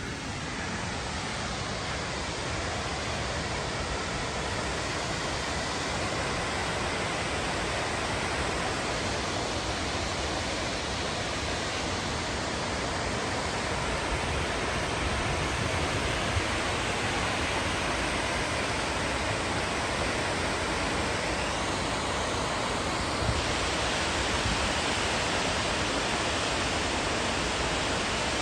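Steady rushing of a large waterfall, Rainbow Falls, growing slowly louder.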